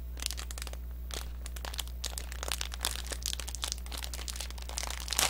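Plastic wrapper crinkling and crackling in a person's hands, a run of small irregular crackles, over a steady low electrical hum.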